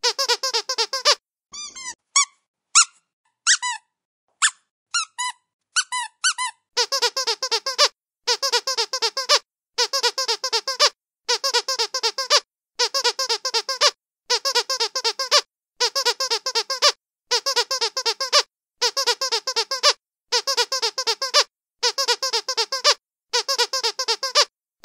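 Squeaky dog toy being squeezed again and again. A quick run of squeaks is followed by a handful of single squeaks that bend up and down in pitch. From about a quarter of the way in come regular bursts of rapid squeaks, each about a second long, repeating roughly every second and a half.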